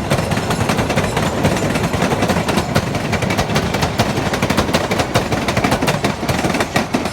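MBTA Blue Line subway train running on the track, its wheels making a dense, rapid clatter over a low rumble.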